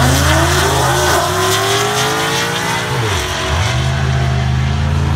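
Drag cars launching hard off the line, a 1,000-plus-horsepower 2015 Mustang among them: engines at full throttle with pitch climbing steadily, then a dip and climb again about three seconds in as a gear shift goes through.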